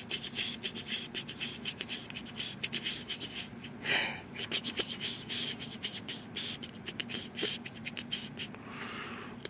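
Rapid, irregular clicks and rustles close to the microphone as a hand scratches and strokes a cat's fur. There is a short burst of hiss about four seconds in and a softer hiss near the end.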